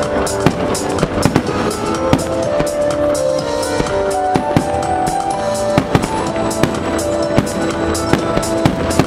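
Music with a drum beat playing loudly and steadily, mixed with frequent sharp bangs of fireworks shells bursting overhead.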